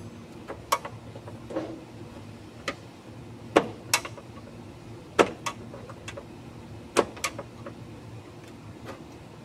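Irregular sharp clicks and knocks, about ten of them, from hand work with tools on a car's plastic underbody panel beneath the radiator, over a low steady hum.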